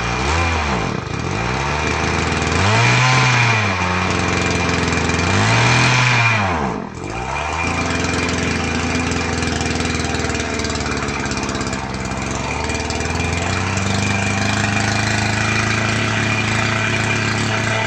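Small pump engine running after repair, revved up and let fall back twice, then running steadily with a slight rise in speed near the middle. The engine runs after a new carburettor diaphragm and an air-fuel mixture adjustment on its carburettor.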